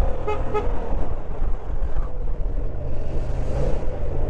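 Steady road rumble of a motorcycle ride, engine and wind noise, with two short horn toots a little under a second in.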